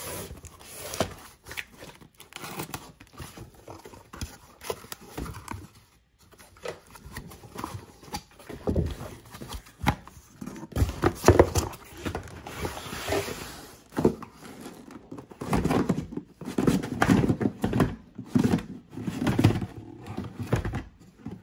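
A cardboard case of trading-card boxes being cut open and unpacked by hand: irregular scraping, tearing and crinkling of cardboard, with thunks as the boxes are set down on a desk, busiest in the second half.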